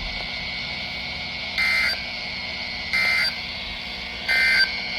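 NOAA Weather Radio sending the Emergency Alert System end-of-message code: three identical short bursts of warbling digital data tones, each about a third of a second and about 1.4 seconds apart, over steady radio hiss. They mark the end of the tornado watch broadcast.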